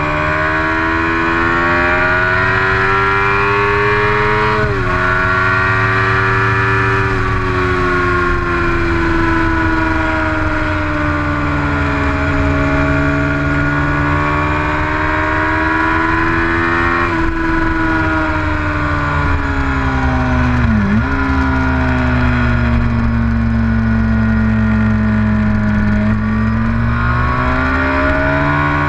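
Motorcycle engine running at speed, its pitch rising and falling with the throttle, with sudden drops in pitch at gear changes about five seconds in and again around seventeen and twenty-one seconds. Wind and road noise run underneath.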